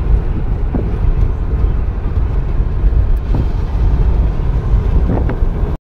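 Road and engine noise inside a car's cabin at highway speed: a steady low rumble.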